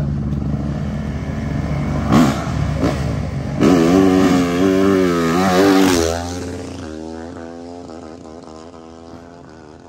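Dirt bike engines running and revving, the engine note wavering up and down and loudest through the middle, then fading steadily over the last few seconds.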